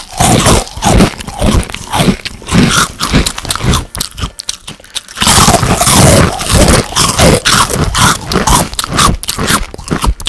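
Loud dubbed monster eating sounds: crunching bites mixed with animal-like grunts, with a short break about four to five seconds in.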